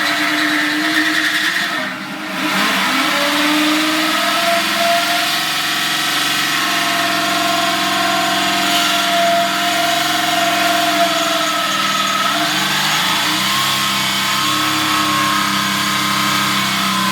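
Electric drill turning a blunt hole saw against painted sheet steel, the motor running steadily with its pitch sagging and recovering under load and a brief let-up about two seconds in.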